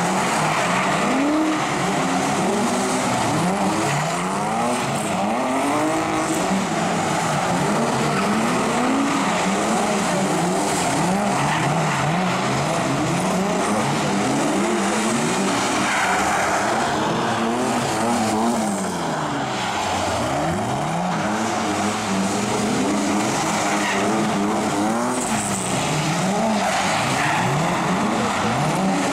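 Several cars drifting on asphalt: their engines rev up and fall back again and again, with tyres squealing as they slide.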